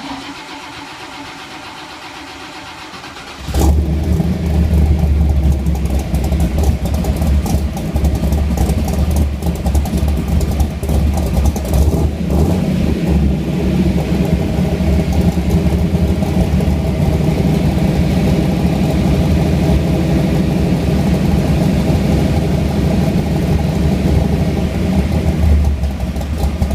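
Ford Mustang engine cranking on the starter for about three and a half seconds, then firing and running loud, settling into a steady idle with a deep rumble.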